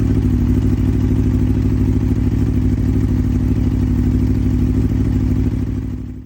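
Aprilia Tuono V4 motorcycle's V4 engine idling steadily through an aftermarket exhaust during warm-up after a cold start, with an even, deep exhaust note. The sound fades out near the end.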